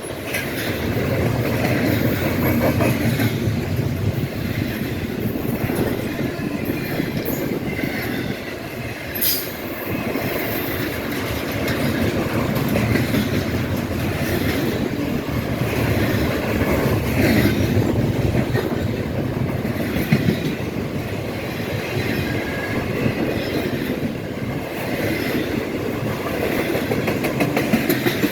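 Freight train cars rolling past with a steady rumble and clatter of wheels over the rails, and one sharp clank about nine seconds in.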